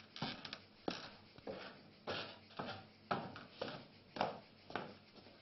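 Slow, soft footsteps, about two a second, faint and a little uneven.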